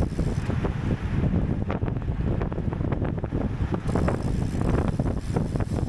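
Wind buffeting the microphone of a camera carried on a racing bicycle at speed, a steady low rumble with many short clicks and knocks running through it.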